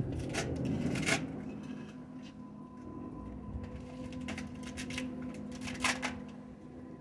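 Animatronic circus popcorn clown prop set going by its push button: a steady motor hum with scattered plastic clicks and rattles, the loudest near the start and again about six seconds in.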